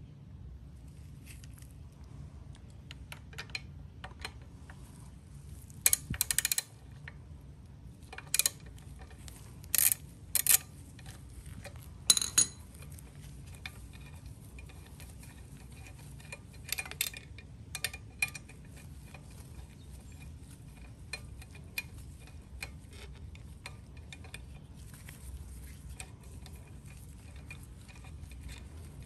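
Small steel hardware clinking: mounting bolts, washers and a socket tool knocked together and handled in gloved hands. Scattered sharp clinks, a few in quick succession, in the first half, over a low steady background hum.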